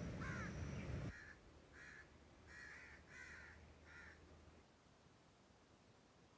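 Crows cawing, a run of about six short harsh calls in the first four seconds, then stopping. A louder low noise fills the first second.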